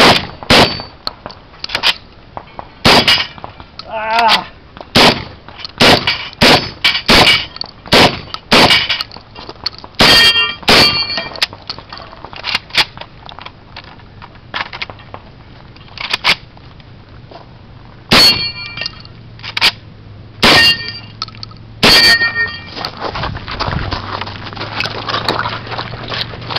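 Rifle fire: about two dozen shots at uneven intervals, several followed by the clear ring of struck steel plate and spinner targets. Near the end the shooting stops and running footsteps on gravel follow.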